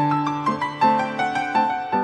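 Background piano music: a slow melody of single notes, each struck and left to ring and fade, a new one about twice a second.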